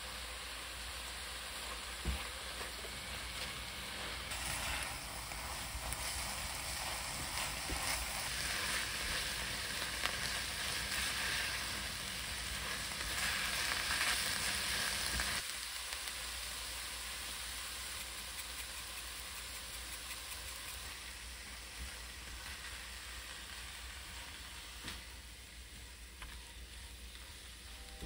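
Aged kimchi sizzling in perilla oil as it is stir-fried over high heat in an enamelled cast-iron pan: a steady frying hiss. The hiss grows louder toward the middle, drops suddenly about halfway through, then fades toward the end.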